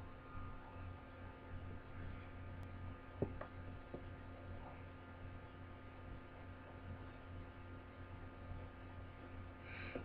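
Steady low electrical hum with a few faint clicks about three seconds in.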